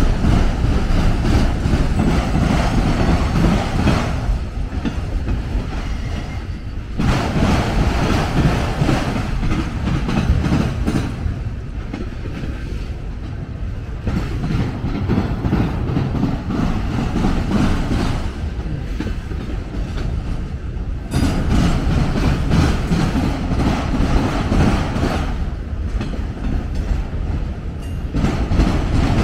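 Freight train of autorack cars rolling past, steel wheels running over the rails. The sound swells and eases every few seconds as the cars go by.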